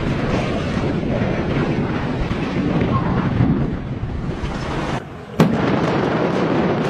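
Controlled demolition: the continuous rumble and crash of blasting and collapsing debris. About five seconds in the sound drops out for a moment, then a sharp blast sets off a new roar.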